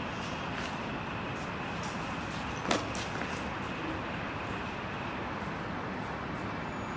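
Steady hum of city traffic, with one sharp click a little under three seconds in.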